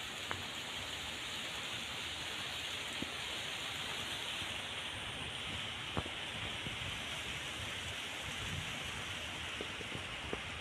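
Steady rush of flowing water from a spring-fed stream, with a few faint clicks, the clearest about six seconds in.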